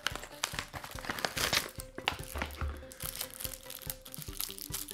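Paper and plastic packaging of small kit items crinkling and rustling as it is handled and opened, a dense run of small irregular crackles.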